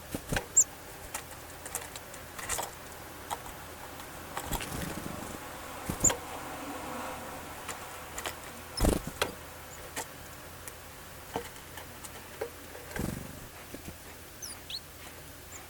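Small wild songbirds feeding: irregular taps, clicks and rustles of birds pecking and hopping about, with a few short, high chirps and a couple of quick high call notes near the end.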